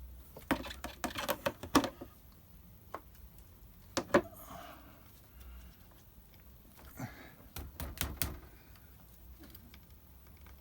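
Sharp metallic clicks and knocks from hands and tools working the clutch cover of a Kawasaki ZX-7R engine loose: a quick run of clicks in the first two seconds, a sharp double knock about four seconds in, and another run of clicks around seven to eight seconds.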